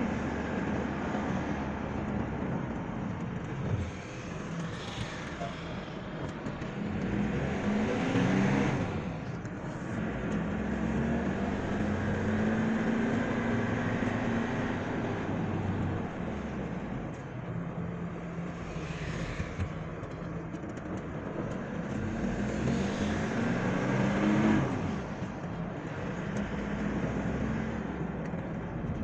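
Car engine and road noise heard from inside the cabin while driving. The engine note rises twice as the car speeds up.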